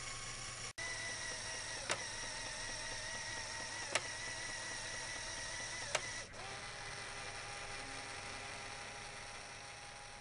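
Lego Power Functions electric motors and gearing running with a steady whir and whine. Three sharp clicks come about two seconds apart, and the sound cuts out briefly under a second in and dips again about six seconds in.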